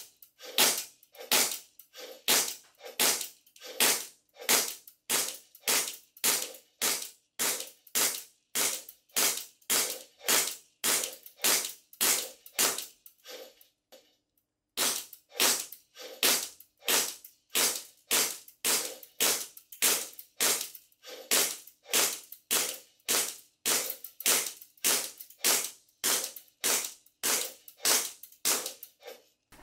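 Army Armament R604 gas blowback airsoft pistol firing semi-automatic, a steady string of sharp shots about two a second. There is a pause of about a second halfway through before the next string begins.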